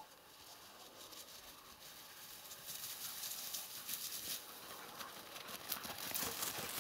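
Dry, tall grass rustling and crackling under running footfalls, growing louder about two and a half seconds in.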